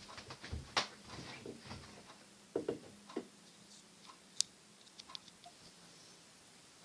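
Scattered light clicks and taps, with a few louder knocks around the middle and a single sharp click soon after.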